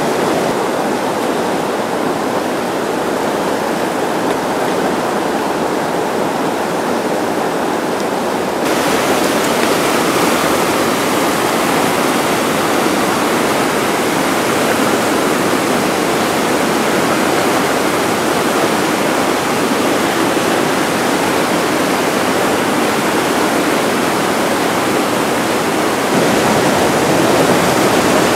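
Whitewater river rapids rushing steadily, a loud, even roar of churning water. It turns brighter and louder about a third of the way in, and louder again near the end.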